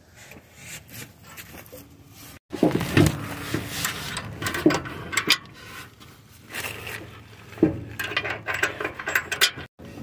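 Irregular scraping, rubbing and light clinks of metal bumper parts and bolts being handled as a bolt is fitted through a mounting bracket.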